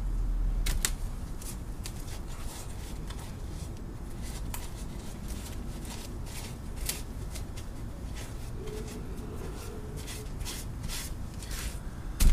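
Handling noise: scattered light clicks and rubbing as things are handled, over a low rumble that fades about a second in.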